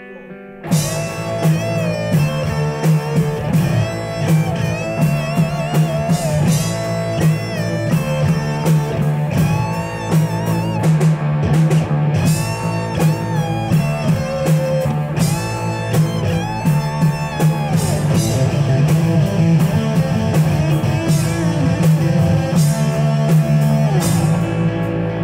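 Instrumental passage of a rock song: electric guitar over drums, with the full band coming in loudly about a second in after a quieter moment. The guitar melody has bending, sliding notes.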